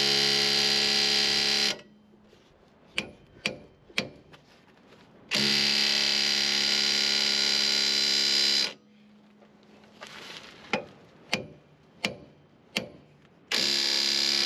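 A cordless power tool spins the screw of a C-frame ball joint press in three steady runs of about three seconds each, pressing a new ball joint up into a lower control arm. In the pauses between runs come several sharp taps, hammer blows on the press clamp to shock a binding joint into moving.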